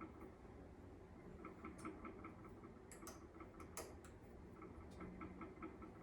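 Faint rapid clicking of a ratcheting hand tool, about five clicks a second in short runs, with a few sharper metal clicks, as a screw is slowly tightened to pull a broken hinge pin out of a cast door hinge.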